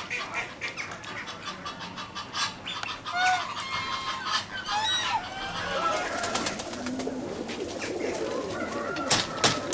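Mixed calls of farmyard fowl, short squawks and clucks, give way about halfway through to a flock of fancy pigeons cooing together in a loft, a low continuous warbling. A few sharp clicks near the end.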